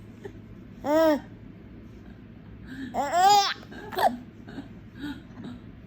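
A four-month-old baby squealing and babbling in laughter: a short call about a second in, then a longer high squeal that rises and falls a little past halfway, with a brief one after it.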